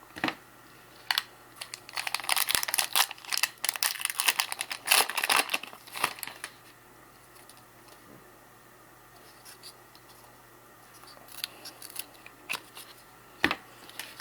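Trading-card pack wrapper crinkling and tearing as a pack is opened and the cards are handled: a dense spell of crackling from about two to six seconds in, then quiet, then a few scattered clicks near the end.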